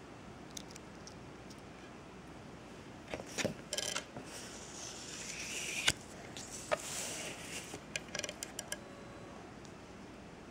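Handling noises of a small pewter pendant and its metal ball chain clinking in the fingers, with a paper card rustling as it is moved on the table. Scattered small clicks, a sharp click near the middle being the loudest.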